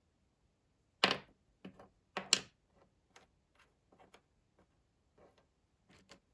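Small plastic miniature toy pieces being handled, clicking and tapping against each other. A few sharp clicks come about a second in and again about two seconds in, followed by a string of lighter ticks.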